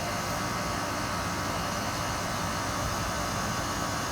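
Outdoor air-conditioning condensing unit running, a steady, even noise with no changes.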